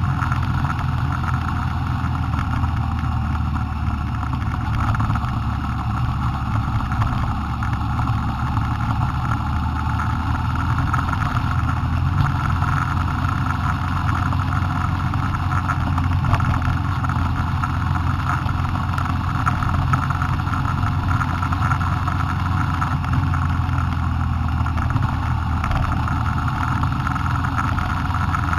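Car engine and tyre noise heard from inside the cabin while driving, steady throughout.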